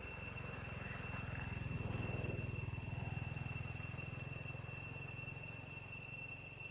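Steady high-pitched insect drone, typical of crickets, over a low rumble that swells about two seconds in and fades.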